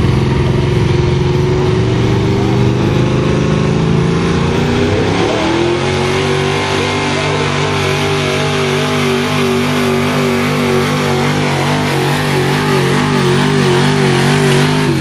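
Pickup truck engine revving hard under load on a truck pull. Its pitch climbs over the first five seconds, jumps higher about five seconds in, then holds at high revs with a slight waver.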